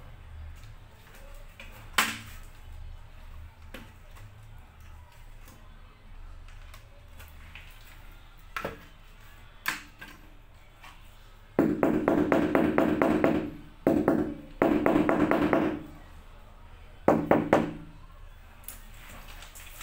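Rubber mallet tapping a floor tile down into its mortar bed: a few single knocks, then three quick runs of rapid taps about halfway through and near the end.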